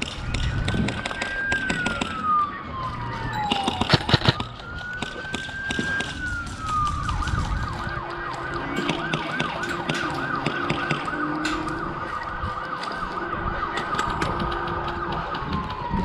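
Emergency-vehicle siren: two slow wails that rise and fall, then a fast yelp from about seven seconds in until near the end. Airsoft guns snap throughout, in a loud cluster about four seconds in.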